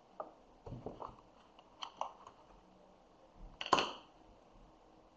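A few scattered soft clicks and knocks, the loudest about three and a half seconds in.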